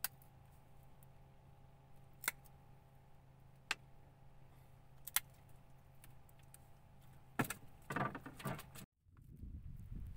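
Sharp metallic clicks from fishing pliers being handled while a small fish is held, four single clicks about a second and a half apart, then a quick rattle of several clicks near the end, over a low steady hum. After a short dropout, a low rumble like wind on the microphone comes in.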